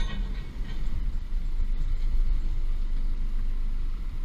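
Steady low engine rumble heard from inside a car's cabin as the car creeps forward on a ferry deck, with one short knock at the start.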